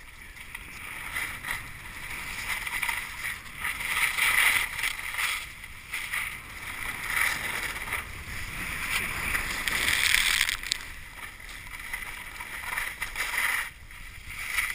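Skis sliding and turning through snow: a rushing hiss that swells and fades every few seconds.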